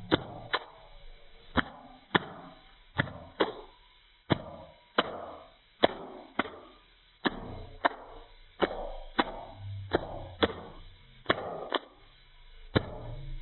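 A run of sharp taps or clicks, mostly in pairs about half a second apart, a pair roughly every second and a half, with faint rustling noise between them.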